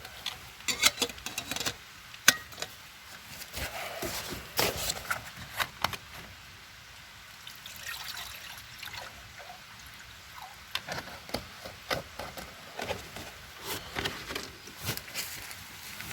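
Irregular crackling and rustling of footsteps walking through wet woodland undergrowth, with scattered sharp snaps and clicks.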